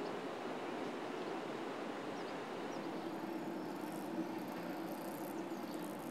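Steady outdoor background noise, with a low steady hum coming in about three seconds in.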